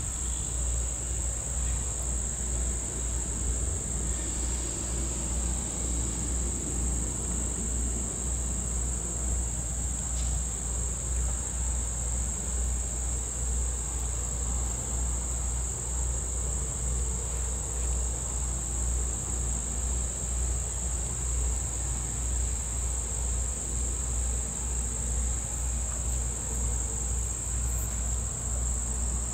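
A chorus of summer insects drones steadily at one high pitch, with a low rumble underneath.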